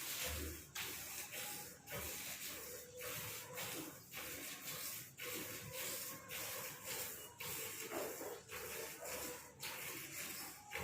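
Buffalo being milked by hand: short jets of milk hiss into a bucket in a steady rhythm, about two squirts a second.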